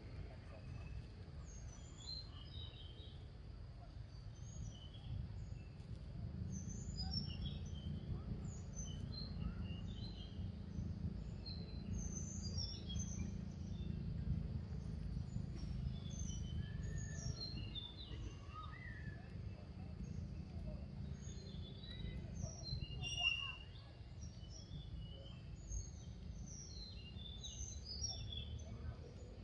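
Forest ambience: many birds chirping in short, high calls scattered throughout, over a steady low rumble that grows louder through the middle and eases off about two thirds of the way in.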